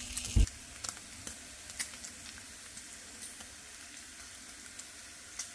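Back bacon rashers frying in a non-stick pan on low heat, the water they were started in boiled off, so the fat is now frying: a steady gentle sizzle with scattered small pops and crackles. A short thump about half a second in.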